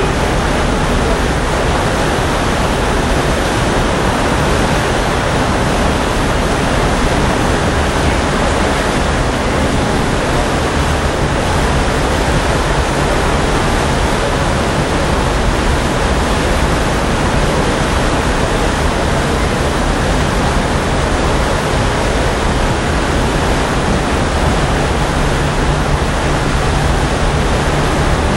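Steady rushing noise of the SS Badger car ferry's churning propeller wake, heard from the stern deck, with a low steady hum underneath.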